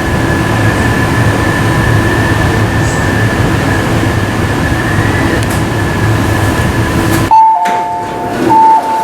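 MTR Tuen Ma line IKK-train standing at the platform, its equipment giving a steady hum with faint fixed tones. About seven seconds in, the hum drops away and a loud two-tone door-closing chime sounds twice.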